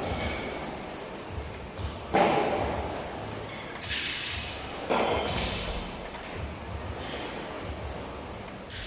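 Three heavy thuds about two, four and five seconds in, the first the loudest, each ringing out in a large hall, over a faint low steady pulse.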